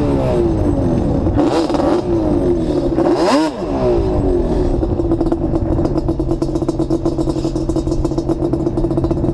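Quad bike (ATV) engines idling and being revved, the pitch rising and falling several times in the first few seconds, then settling into a steady idle.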